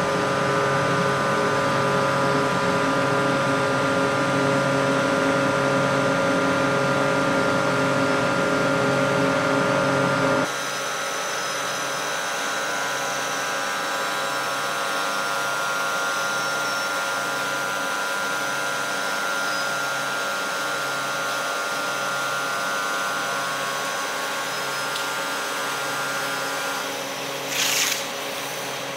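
Foam-sheet winding machinery running steadily: a hum with several steady whining tones. About ten seconds in, it switches abruptly to a quieter, thinner run of the same kind of machine noise. Near the end there is a short hiss.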